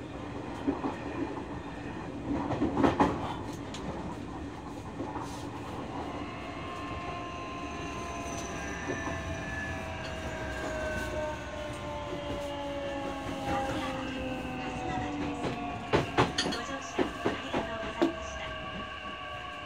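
Nishitetsu 9000 series electric train heard from inside the car: the Toshiba hybrid-SiC VVVF inverter and enclosed induction traction motors whine in several tones that fall steadily in pitch as the train slows, over a steady running rumble. The wheels clack over rail joints a few times about three seconds in and again near the end.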